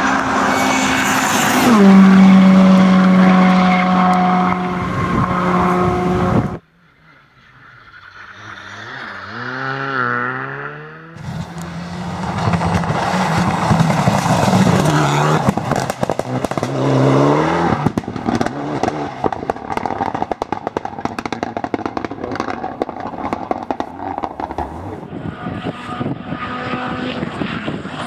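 Rally cars at full speed, one after another with abrupt cuts between them: engines revving hard, their pitch climbing and dropping through gear changes. A third of the way in the sound cuts out and a car is heard approaching from afar. A Mitsubishi Lancer Evolution X then passes close, followed by a long stretch of rapid crackling and ticking.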